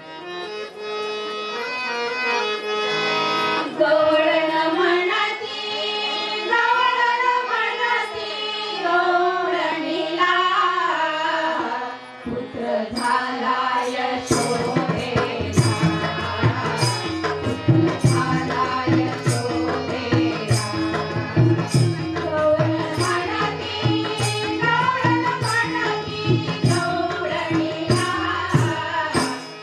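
A group of women singing a Marathi gavlan folk song over a steady held accompaniment. After a short pause about halfway through, percussion comes in with an even beat under the singing.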